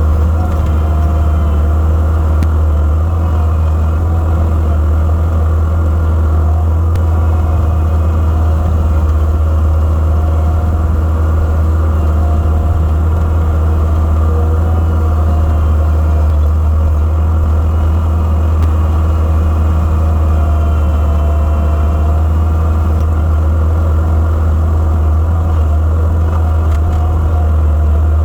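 Gehl 5635SX skid steer's diesel engine running steadily, a heavy low drone with no change in speed.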